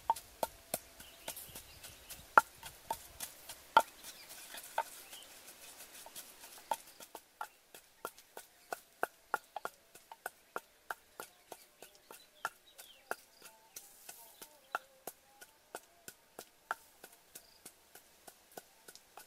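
Wooden pestle pounding in a wooden mortar: a steady run of sharp knocks, about two or three a second, each with a brief ring, the strongest strikes in the first few seconds.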